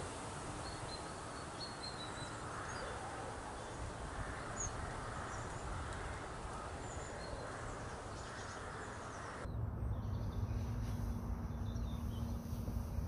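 Small birds chirping faintly and briefly over a steady woodland hiss. About nine and a half seconds in, the sound cuts to a low rumble with a faint steady hum.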